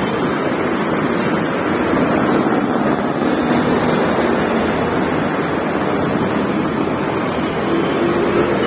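Steady traffic noise of a busy city road, with buses, jeepneys and motorcycles passing.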